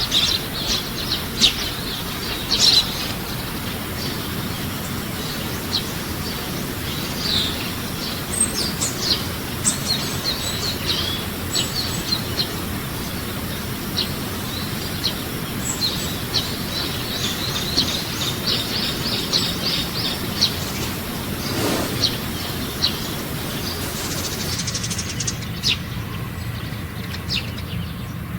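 Wild songbirds chirping: many short, high calls following one another and overlapping, over a steady low background hum.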